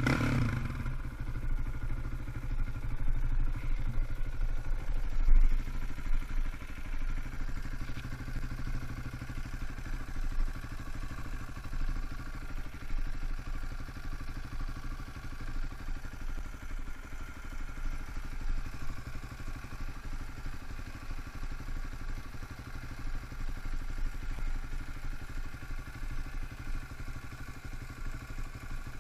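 KTM 525 XC quad's single-cylinder four-stroke engine settling to an idle in the first second, then idling steadily, with a single thump about five seconds in.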